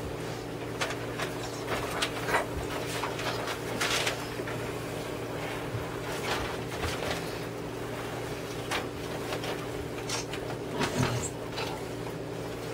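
Room tone: a steady low hum with scattered soft rustles and small clicks.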